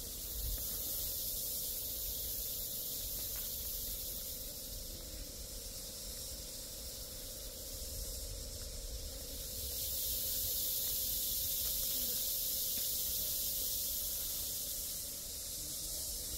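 A steady, high-pitched, hissing insect drone that swells louder about ten seconds in, over a low rumble.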